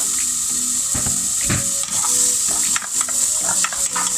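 Diced onions frying in hot olive oil, a steady sizzle, with a utensil clicking and scraping against the pan as they are stirred.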